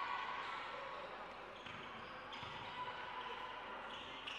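Basketball bouncing on an indoor court floor, a few scattered thumps over the steady background noise of the hall.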